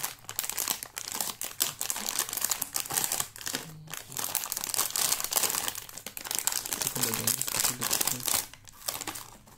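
Plastic anti-static shielding bags crinkling and crackling as they are handled, an irregular stream of crackles with brief lulls about four seconds in and near the end.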